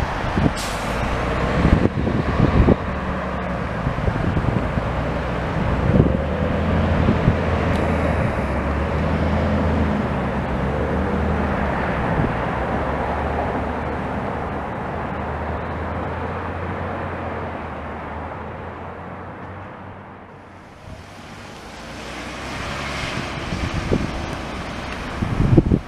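A New Flyer low-floor transit bus's engine running steadily as the bus drives off, its drone fading away over about twenty seconds. Near the end, road noise from another passing vehicle rises.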